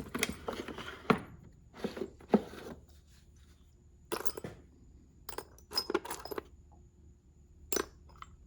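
Small loose metal parts and tool bits clinking and rattling as they are picked through by hand in a toolbox drawer. Busy clinking for the first few seconds, then a few separate clatters.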